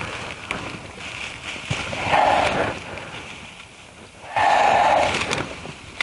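Rustling and brushing of a fine mesh insect net against grass and weeds, in two loud bursts of about a second each, one around two seconds in and one near the end, trailing off from an earlier burst at the start.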